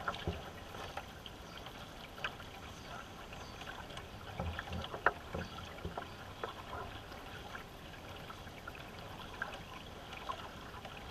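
Racing canoe being paddled: paddles dipping and water splashing and trickling along the hull, with scattered light clicks and knocks, the sharpest about five seconds in.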